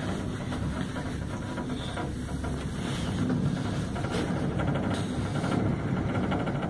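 Steady low rumble inside a moving gondola cable-car cabin as it travels along the ropeway, with a few faint knocks. It grows slightly louder about halfway through.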